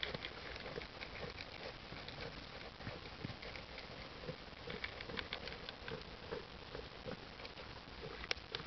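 Alpacas eating feed pellets from a plastic bowl: irregular small crunches and clicks of pellets being chewed and nosed about, with a couple of sharper clicks near the end.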